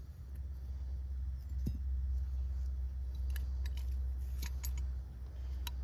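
Metal clinking and rattling from the chain and steel stake of a dog-proof raccoon trap being handled, with a few sharp clinks spread through, over a steady low rumble.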